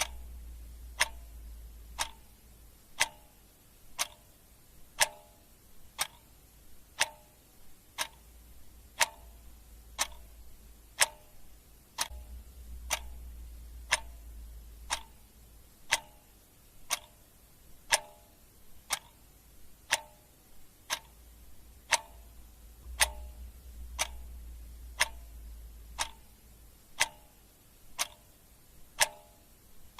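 Clock ticking sound effect: a steady mechanical tick about once a second, the ticks alternating slightly in tone like a tick-tock.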